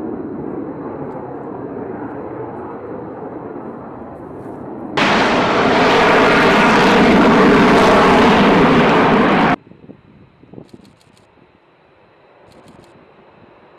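Fighter jet noise: a steady, moderate rumble, then a very loud jet roar that starts suddenly about five seconds in and cuts off just as suddenly about four and a half seconds later.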